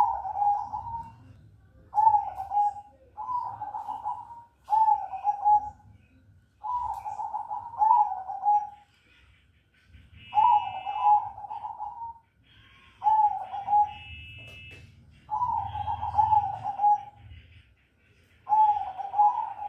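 Zebra dove (perkutut) cooing, singing about ten short repeated phrases of its rolling song, a second or two apart. A brief higher chirping from another bird cuts in twice in the middle.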